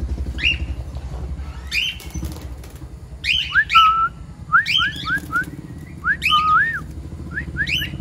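Caged pet cockatiels and budgerigars calling: short rising chirps, one at a time at first and then in quick runs of several, some ending in a brief held whistle, over a low steady rumble.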